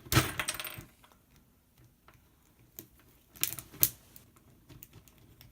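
Small plastic clicks and scrapes of pliers working a mini light bulb's base out of its socket: a rattling burst of clicks at the start, light ticking, then another cluster of clicks with one sharp snap about three and a half seconds in.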